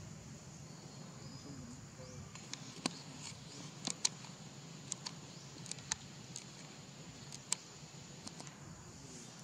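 Quiet forest background with a faint steady high-pitched insect drone, and scattered sharp ticks and clicks, about a dozen at irregular intervals from a few seconds in until near the end.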